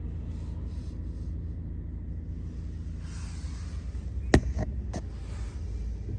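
Low, steady rumble of a car running, with a few sharp clicks about four and a half seconds in.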